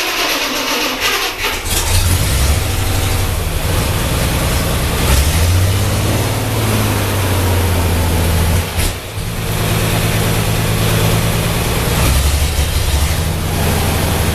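Ford 8N tractor engine catching about a second and a half in and then running steadily. The sound dips briefly about nine seconds in.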